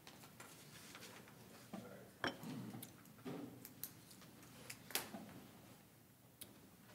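Quiet meeting-room tone with scattered faint knocks and clicks as people walk up to the presenter table, and a brief faint murmured voice a little over two seconds in.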